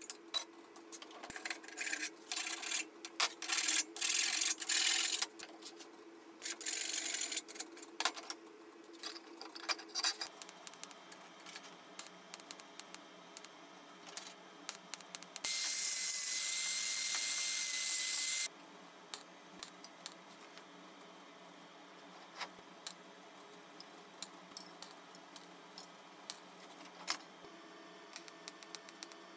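Hammer strikes and scraping on a steel plate for about the first ten seconds. Then a TIG welding arc hisses steadily with a thin whine for about three seconds and cuts off. Scattered light metal ticks follow over a faint steady hum.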